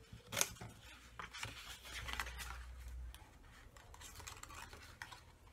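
Scissors cutting white cardstock: one sharp snip about half a second in, followed by faint rustling and scraping as the card is handled and trimmed.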